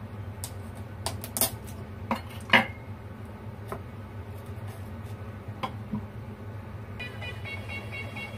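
Scattered clinks and knocks of a metal utensil against a hollowed-out pumpkin and the dishes around it, about eight separate strikes, the loudest about two and a half seconds in.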